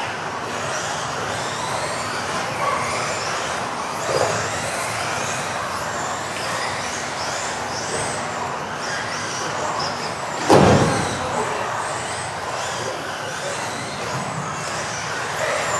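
Several electric RC off-road cars racing around a hall track: their high motor whines rise and fall again and again as they speed up and slow down over a steady noise. One loud, sharp knock comes about ten and a half seconds in.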